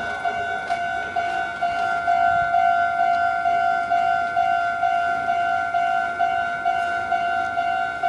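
Japanese railway level crossing's electronic warning bell ringing its repeating "kan-kan" tone, about two to three strikes a second.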